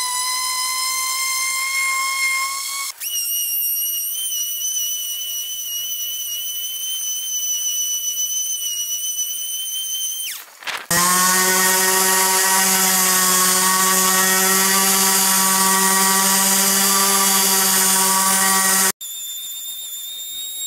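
Makita random orbit sander running on a wood board, a steady motor whine. The pitch jumps at abrupt cuts: a whine that spins up just as it starts, a higher whistle from about three seconds in, a louder, lower hum with a hiss over it for most of the second half, and a high whistle again near the end.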